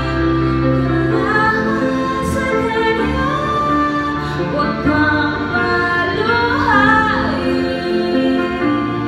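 A woman singing into a handheld microphone, her voice gliding and holding long notes over instrumental backing music.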